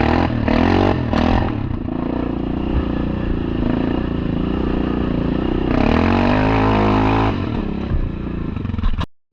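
Yamaha Kodiak 700 ATV's single-cylinder engine running under throttle, its pitch rising and falling, with a strong rev about six seconds in. The sound cuts off abruptly near the end.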